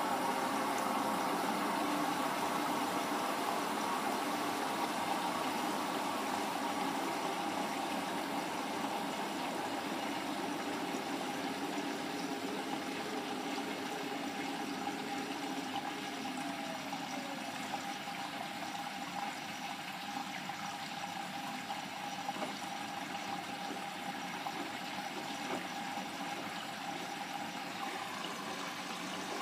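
Bosch WAY32742 front-loading washing machine in its wash phase: water sloshing in the turning drum over a steady machine hum.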